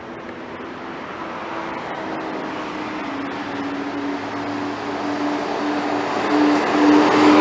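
Diesel city bus, UD-built, approaching and passing close by: a steady engine drone with tyre and road noise, growing louder as it nears.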